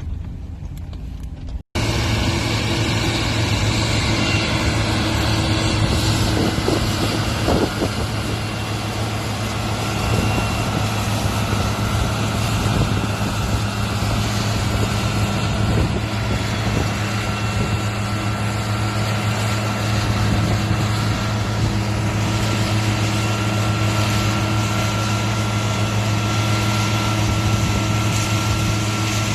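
Large farm-vehicle engine running steadily at one speed with a deep, even hum. It starts abruptly about two seconds in, after a quieter stretch.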